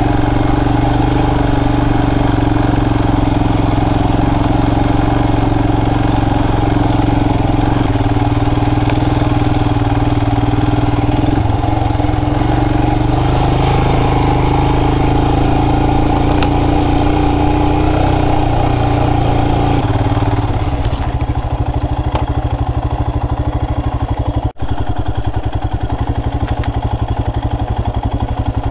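Royal Enfield Himalayan's single-cylinder engine running steadily under way, then about 20 seconds in dropping to a quieter, slower, even beat like an idle. There is a momentary break in the sound a few seconds later.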